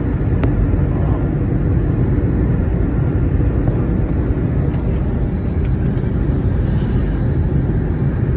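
Steady loud drone of an airplane in flight, heard from inside the cabin: a dense low rumble with no change in level.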